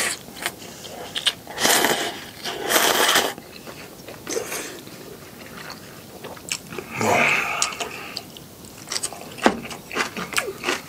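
A person slurping clam knife-cut noodles (kalguksu) and broth, two long slurps about two and three seconds in and another about seven seconds in, then chewing with short smacking clicks near the end.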